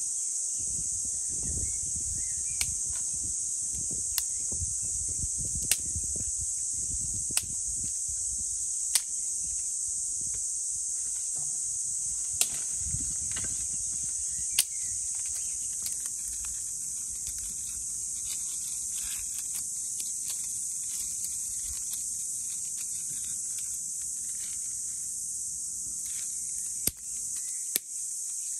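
A steady high-pitched insect chorus, with sharp stone-on-stone knocks every second or two during the first half as rocks are set into a campfire ring, over the low rustle of handling.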